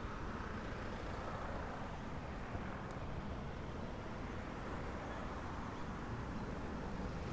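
City street ambience: a steady hum of road traffic, swelling slightly in the first couple of seconds as a vehicle goes by.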